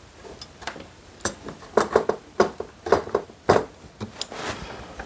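Irregular light clicks and knocks, about eight over a few seconds, as a hobby servo is handled and fitted into its slot in a metal robot-arm frame.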